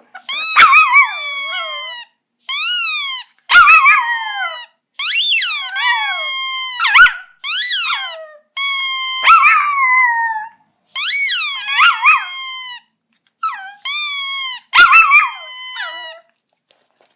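A chihuahua howling along with a squeaky toy being squeezed over and over, high-pitched squeaks and wavering howls in repeated bursts of a second or two with short gaps.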